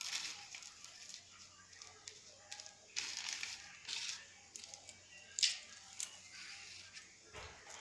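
Plastic courier bag crinkling and gold-tone beaded necklaces rustling and clinking as they are lifted out and laid down, in several short irregular bursts, the loudest about five and a half seconds in.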